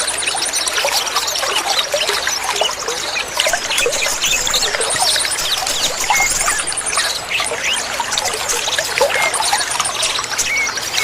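Trickling water under a dense chorus of many small songbirds chirping and twittering. Short, fast, high trills recur every couple of seconds.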